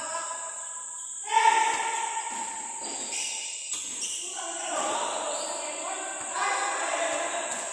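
Players' voices calling out and shouting across a basketball court in a large hall, with a basketball bouncing now and then. A steady high-pitched insect drone runs underneath.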